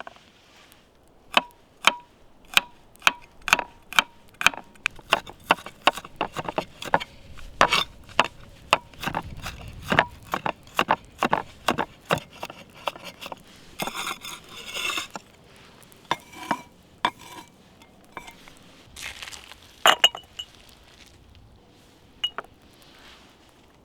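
Metal cooking utensils clinking: a run of sharp, briefly ringing clinks, about two a second, then a few scattered clinks near the end.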